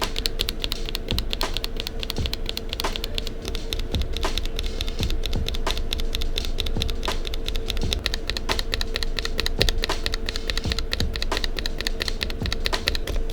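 Linear mechanical keyboard switches being pressed in quick succession in a switch sound test, a dense run of many clicky keystrokes a second.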